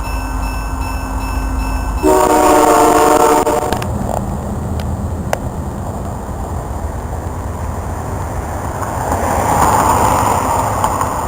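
A diesel freight locomotive's multi-tone air horn blows a blast of about a second and a half, roughly two seconds in, over the steady rumble of the passing train. After the horn the train keeps rumbling, with a couple of sharp clicks and a swell of rushing noise near the end.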